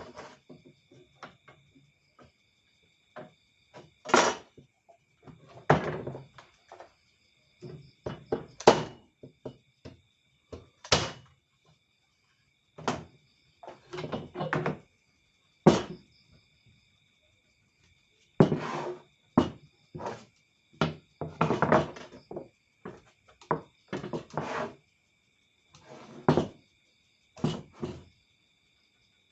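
Irregular knocks and thuds, single or in quick clusters every second or two, as of wooden parts being handled and set down, over the steady high chirring of crickets.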